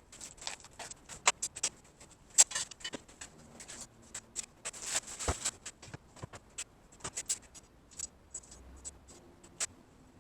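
Hands-on shop work: a string of irregular sharp clicks and taps, with a short scraping sound about five seconds in.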